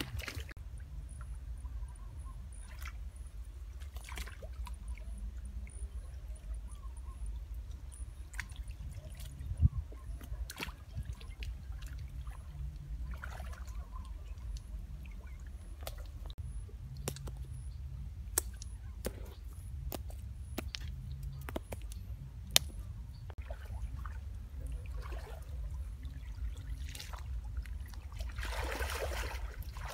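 Shallow pond water sloshing and trickling as people wade and work their hands in it, with scattered small splashes and sharp clicks over a steady low rumble. A longer, louder splash comes near the end.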